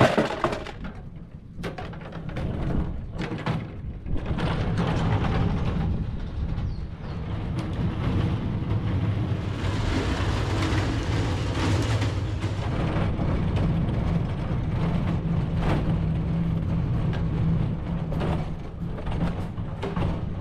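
A sharp knock at the start, then a wheeled tool cart rolling over concrete on its casters: a steady low rumble with its drawers and the tote on top rattling and clicking.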